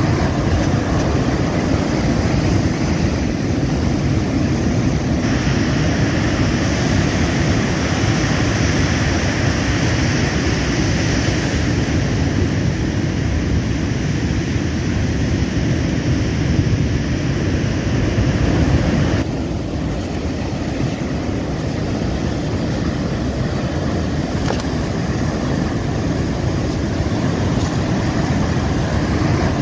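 Rough, cyclone-driven surf breaking on the shore, heard through strong wind rumbling on the microphone: a loud, steady rushing noise. The level dips slightly about two-thirds of the way through.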